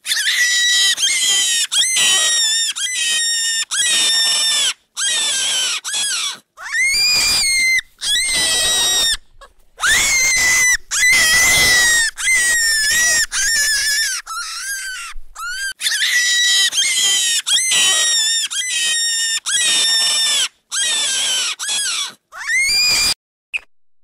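An animal squealing over and over: loud, high-pitched squeals of a fraction of a second to about a second each, with short gaps between them and some sliding upward at the end. The squealing stops about a second before the end.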